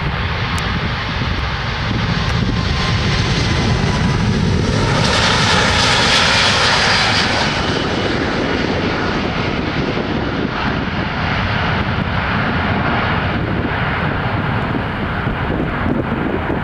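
Four-engined Airbus A380 airliner taking off at full thrust, lifting off and climbing away. The jet engine noise swells to its loudest and brightest about five to seven seconds in, then carries on a little lower and steady as the aircraft climbs.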